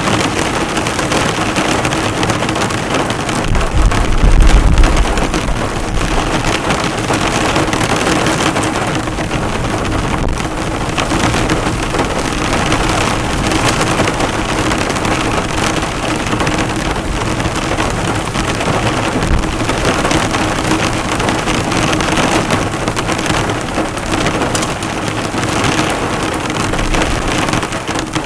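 Heavy rain drumming on a car, the drops hitting the bonnet, steady throughout. A low rumble swells about four seconds in.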